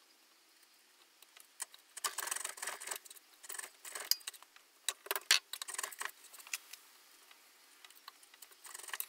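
Hand chisel slicing into and paring waste from a mortise in pine, in bursts of small crisp scrapes and clicks as chips break away, with quiet pauses between the bursts.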